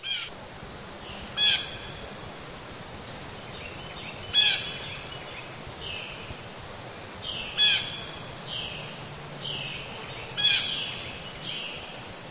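Blue jay giving short, harsh calls, one every few seconds, over a steady high-pitched insect drone.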